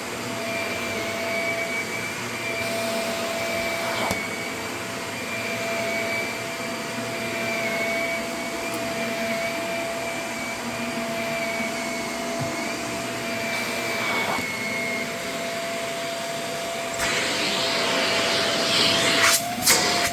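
Shark Rotator Professional NV501 upright vacuum running steadily with a constant whine. About three seconds before the end the rushing noise of the airflow grows louder, and a few sharp knocks come right at the end.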